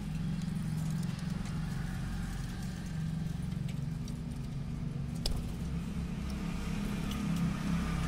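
A steady low hum under scattered light ticks and taps of budgerigars moving about and pecking on the wooden ladder and floor of their cage, with one sharper click about five seconds in.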